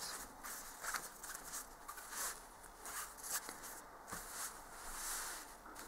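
Hands rubbing and smoothing a crocheted fabric piece flat against a cloth tablecloth, a series of soft, irregular rustling strokes.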